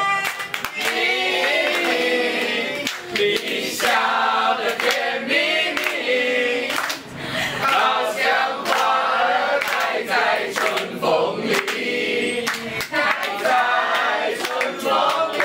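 A group of people singing together in chorus, with scattered hand claps throughout.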